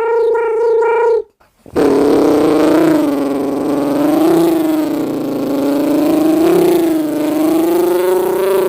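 A man's voice making mouth sound effects: a pulsing hum that stops about a second in, then after a short gap a long, steady hummed drone that wavers slowly in pitch.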